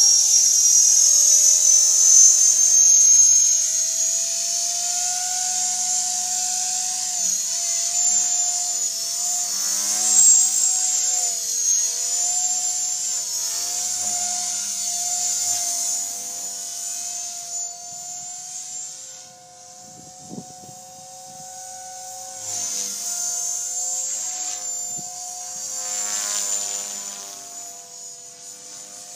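Blade 450X brushless electric RC helicopter's motor and rotor whine. The high-pitched whine wavers in pitch as the helicopter manoeuvres, is loudest at the start, and fades as the helicopter climbs away.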